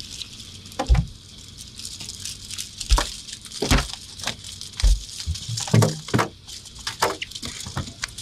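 A hooked blue runner being landed on a small boat: water splashing, with heavy thumps about a second in, around three seconds in, and near five seconds, as the fish hits against the boat, then a cluster of sharper knocks and rattles.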